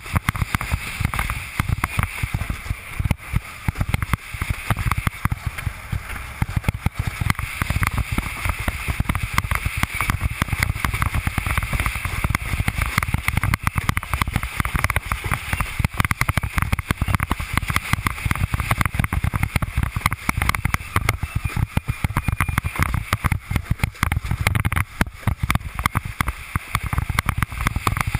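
Wind buffeting the action camera's microphone with a rapid, uneven rumble, over water rushing and splashing against the hull of a Fanatic Falcon 104 windsurf board as it sails through chop. The noise stays loud and steady.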